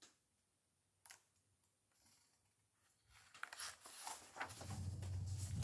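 Near silence with a single faint click about a second in, then from about three seconds in the paper pages of a picture book rustling as it is handled and a page is turned.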